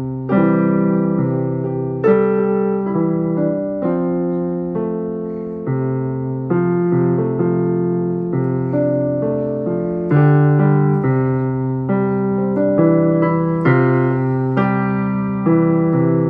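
Yamaha PSR-i500 keyboard playing a piano voice: chords and melody notes struck one after another at an unhurried pace, each fading after it is struck.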